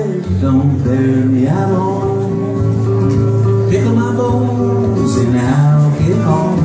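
Live country music: a man singing over a strummed guitar, with steady low notes underneath.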